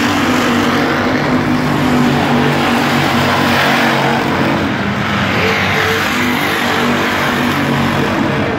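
A field of dirt-track stock cars racing, their engines running loud and steady, with a pack passing close and growing louder about four to six seconds in.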